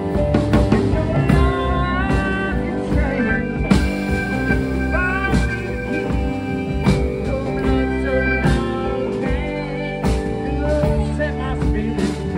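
Live band playing a country-rock song on electric guitar, keyboard and drum kit, with cymbal hits throughout. Several notes bend upward in pitch.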